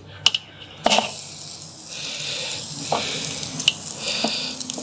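Lamb mince skewers sizzling as they are laid over very hot charcoal, direct heat at about 300 °C. A few sharp metallic clinks of the steel skewers knocking on the kettle grill, the loudest about a second in.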